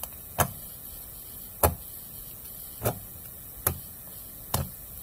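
Lotion-mixed slime being pressed and poked with the fingertips, giving five small sharp pops about a second apart.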